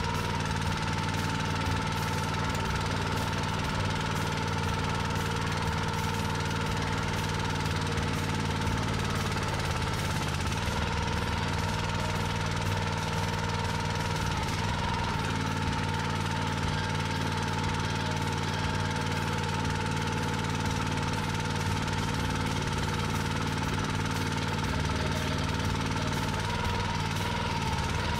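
Kohler 6.5 hp single-cylinder engine of a 27-ton log splitter running steadily, its note shifting slightly now and then as the splitter's ram is cycled to purge air from freshly changed hydraulic fluid.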